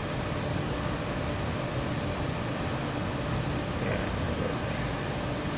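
Steady background hiss and low hum, like a fan or air conditioner running, with no distinct tool or part sounds standing out.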